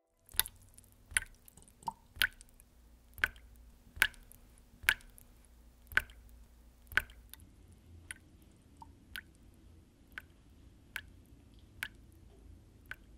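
Water dripping from a faucet into a sink, single drops landing about once a second, louder for the first seven seconds and fainter after that.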